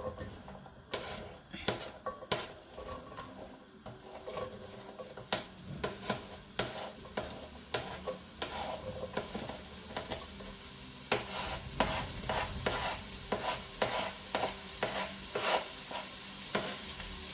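Onions frying in hot oil in a pan, sizzling while a utensil stirs them, with repeated clicks and scrapes against the pan; the onions are cooking toward translucent.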